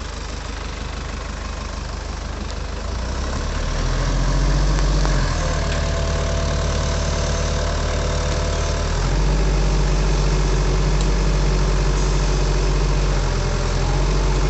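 Sumitomo hydraulic excavator's diesel engine running under working load, getting louder and stepping up in note about four seconds in and again about nine seconds in as the boom is worked. A thin steady whine sits over the engine for a few seconds in the middle.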